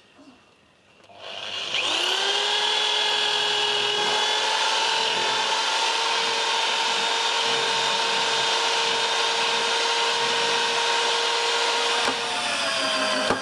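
Electric drill with a long drill bit drilling through timber battens: the motor winds up to speed about a second and a half in and holds a steady, even whine. Near the end its pitch drops and shifts.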